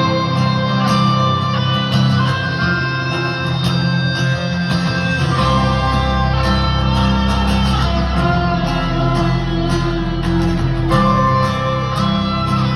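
Live band music led by guitar, playing a song intro through an arena sound system. A deep bass comes in about five and a half seconds in.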